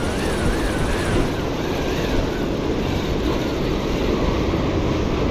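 Steady wind buffeting the microphone over the wash of surf, with a faint wavering whine through the first couple of seconds.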